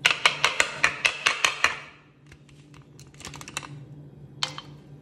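Ice cubes clinking and clattering against a glass bowl of mango juice: a quick run of sharp clicks for about two seconds, a shorter cluster about three seconds in, and one more click near the end.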